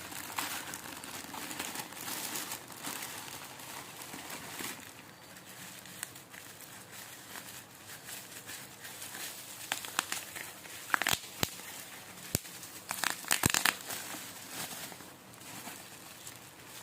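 Packaging of solder core wire crinkling and rustling as it is handled and opened, with a few sharp clicks and louder crinkles about two-thirds of the way through.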